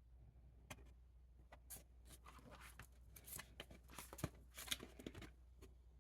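Faint rustling and soft clicks of a collector card album's pages being handled and turned, busiest in the middle.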